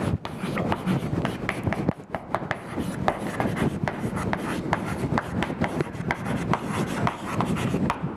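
Chalk writing on a blackboard: a quick run of short scratching strokes and taps, a few every second, over a steady low rumble.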